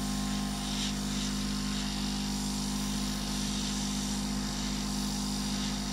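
Hot-air rework gun running with a steady fan hum and a low buzz, blowing hot air onto a circuit board's solder joints to melt them.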